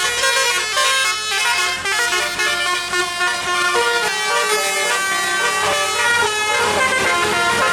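Bus 'telolet' musical air horn playing a tune: many horn trumpets sounding notes that step from one pitch to the next, several at once, without a break.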